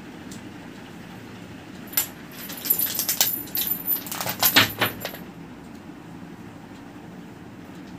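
A kitten at play with a small ball on a concrete floor: a flurry of light metallic jingles and taps starting about two seconds in and lasting about three seconds.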